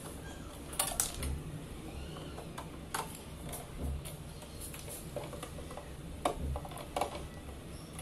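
Screwdriver working the screws of a sealing machine's metal base as its feet are removed: a few scattered light metallic clicks and taps.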